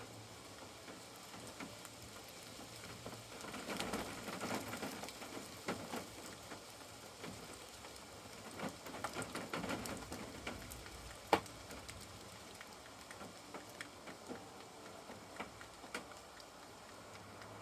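Raindrops pattering irregularly on a caravan roof, heavier for a moment a few seconds in and again around the middle, with one sharper drop tap a little past the middle.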